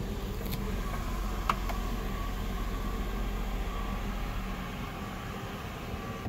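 Electric motor of a 2010 Mercedes-Benz E350 Coupe's panoramic sunroof running steadily with a faint whine as the glass panel slides back to open, with a few small clicks.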